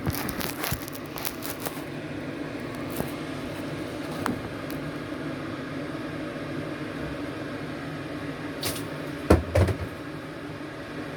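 Light clicks and clatter of handled items over a steady low hum, with a few louder knocks about nine seconds in.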